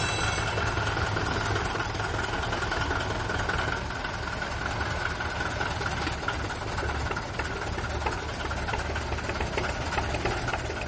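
An engine running steadily with a low rumble and a faint whine that fades out in the first few seconds, then a stream of sharp ticks in the second half.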